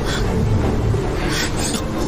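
Sandstorm wind: a steady low rumble with a few short hissing gusts of blown sand, one near the start and two about a second and a half in.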